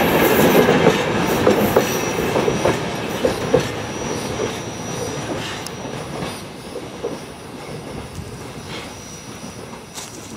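A train rolling on rails, its wheels clicking irregularly over rail joints with a thin, steady, high squeal, fading steadily away.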